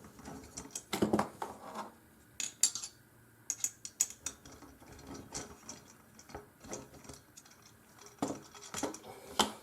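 Small metal parts of an aluminum-frame filament spool holder clinking and knocking as they are handled and fitted during assembly: irregular sharp clicks and clatters, with a cluster about a second in and another near the end.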